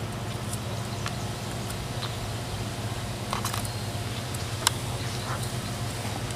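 Patch tape and a plastic rink liner being handled as the liner is tacked to wood boards: scattered small clicks and taps, a quick cluster a little past the middle and a sharper click near the end, over a steady low hum.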